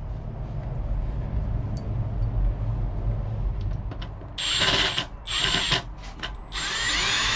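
Small cordless drill driving screws, running in several short bursts of a few seconds each from about halfway through, its motor whine rising and falling in pitch with the start and stop of each burst; handling noise and low rumble before that.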